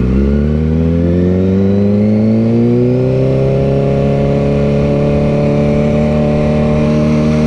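Motorcycle engine accelerating, its pitch rising over the first three seconds or so and then holding steady.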